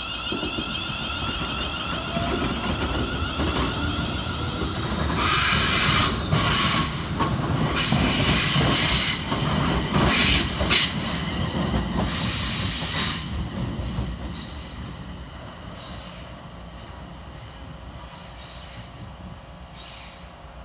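A Class 350 electric multiple unit running through the station, its rumble and wheel noise carrying steady high-pitched whining tones at first. From about five seconds in, a loud high-pitched wheel squeal with clattering rises over it for several seconds, then the train's sound fades away.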